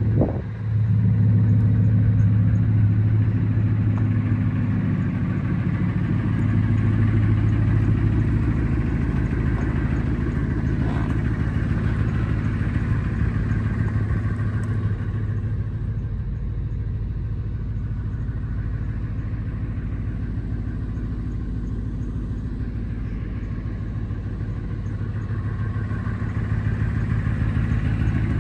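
1998 Ford F-150 pickup's engine idling steadily, an even low exhaust burble. It is louder for the first several seconds, then a little softer for the rest.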